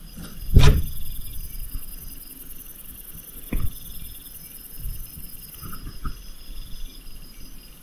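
Crickets chirping in a steady high trill, with a loud thump about half a second in and a softer knock about three and a half seconds in.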